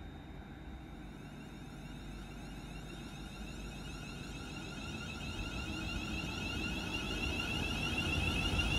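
A train approaching, growing steadily louder, with a high whine of several steady tones above a rising low rumble.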